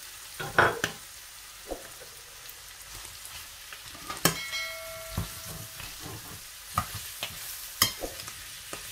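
Chicken, green beans and onion rings sizzling in a stainless steel frying pan as they are stirred with metal tongs and a slotted spatula, with scrapes and sharp knocks of the utensils on the pan. One knock about four seconds in leaves the pan ringing briefly.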